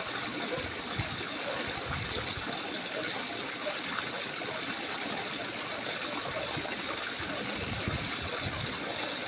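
Steady rush of running water, like a stream or pouring water, with a few low bumps.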